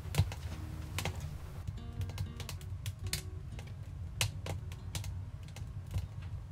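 Wood fire crackling in a multi-fuel stove: irregular sharp cracks and pops, a few a second, over a low steady rumble, with faint music underneath.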